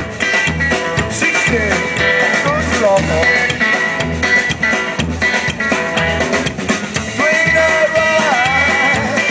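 Live rockabilly band playing: electric guitar, upright double bass and drum kit, with a steady low bass-and-drum beat about twice a second.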